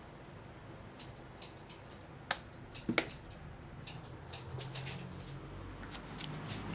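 Barber's hands working a head during an Indian head massage: scattered small clicks and snaps, with two louder sharp cracks about two and three seconds in.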